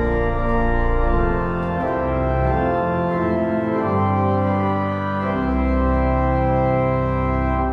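Church organ playing sustained chords over deep bass pedal notes, the harmony changing every second or so.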